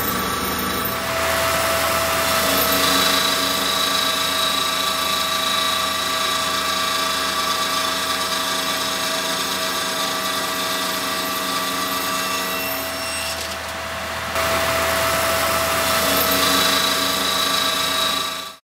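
Kalamazoo K20SW 20-inch wet abrasive cut-off saw running, its abrasive wheel grinding through a solid copper block under coolant spray: a steady whine over a grinding hiss. It drops briefly about three quarters of the way through, comes back, and cuts off suddenly at the end.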